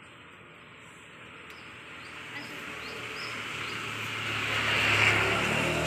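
A motor vehicle passing on the street, its engine hum and tyre noise growing steadily louder to a peak about five seconds in, then starting to fade.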